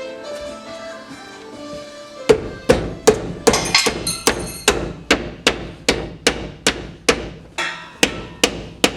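Steady hammer blows on metal, about two and a half a second, each ringing briefly, starting a couple of seconds in over background music.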